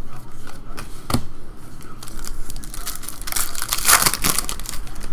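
Plastic wrapper of a trading-card pack crinkling and tearing as it is ripped open, with scattered clicks and a knock about a second in. The loudest crackling comes between about three and four and a half seconds in.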